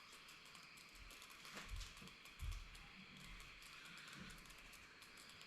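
Near silence: faint room tone with a few soft knocks and a click between about one and a half and two and a half seconds in.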